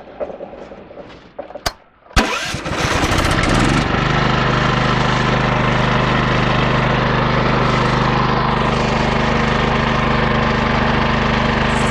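Small gasoline engine driving a homemade bandsaw sawmill, 14 hp and 420cc, starting about two seconds in. It revs up for a second or so, then runs steadily at speed.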